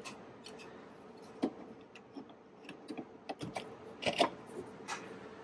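Handling noise of a plastic plug-in power adapter against a wall outlet: scattered light clicks and rubbing, with a few louder knocks about four seconds in.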